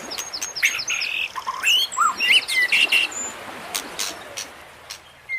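Songbirds chirping and trilling in quick rising and falling calls, with a few light clicks among them.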